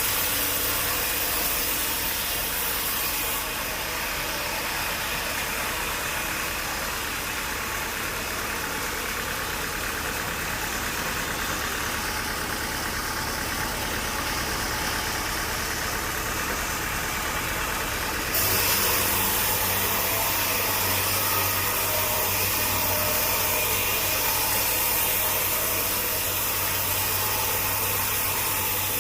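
Engine-driven sawmill machinery running steadily, a dense unbroken noise whose tone changes abruptly twice, about three seconds in and again just past the middle.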